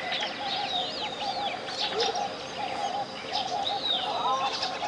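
Tropical jungle birdsong: several birds whistle and chirp in short gliding calls over a lower chattering call that repeats again and again. A steady pure tone at 528 Hz sits underneath.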